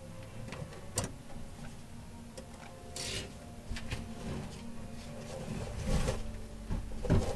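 Savanna monitor shifting in its wooden enclosure as it feeds on a rat: a few scattered knocks and a short scrape, the loudest knocks near the end, over a steady low hum.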